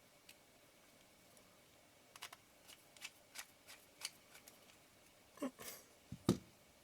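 Light clicks and taps of a camera lens and small repair tools being handled on a workbench: a quick run of small clicks from about two seconds in, then a brief rustle and two louder knocks near the end.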